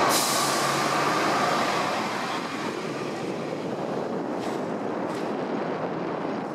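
Hong Kong Tramways double-decker electric tram running along its rails, heard on board: a steady rumble of wheels and motor, louder for the first two seconds and then settling, with a brief hiss at the start and a couple of faint clicks about four and five seconds in.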